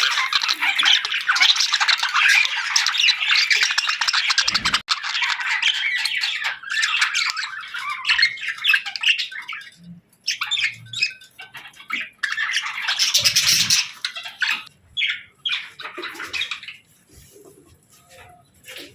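A group of small birds chirping and squawking: dense chattering for the first half, thinning into scattered calls with one brief loud flurry, then dying away almost to quiet near the end.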